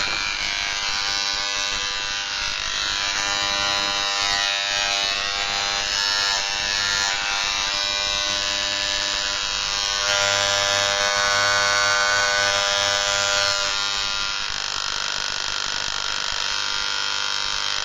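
Moser 1400-type mains hair clipper with a vibrating electromagnetic motor, running with a loud, steady buzz that shifts in tone a couple of times. The excess noise is a known complaint with this model and is most likely caused by the motor's moving part striking the housing.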